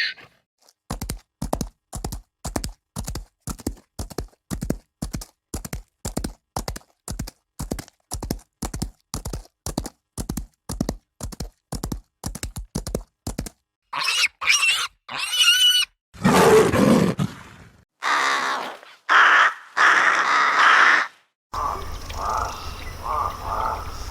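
A run of different animal calls one after another: first a steady series of short grunts, about two and a half a second, for some thirteen seconds, then a few high, wavering calls, then three longer, fuller calls, and near the end a fast repeating croak-like call.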